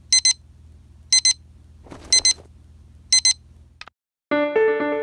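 Digital alarm clock beeping in pairs of short high beeps about once a second, over a low hum, with a rustle about two seconds in. The beeping stops just before four seconds in, and after a brief silence music with keyboard-like notes begins.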